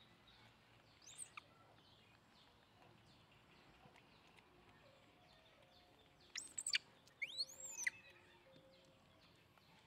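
Birds calling outdoors over faint background noise: a short rising chirp about a second in, then a cluster of sharp, high calls that sweep quickly up and down a little past the middle.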